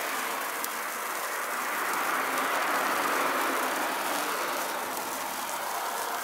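Hand-held Suruga-made spark firework (supāku hanabi) burning with a steady hiss and a light scattering of crackles as it throws sparks.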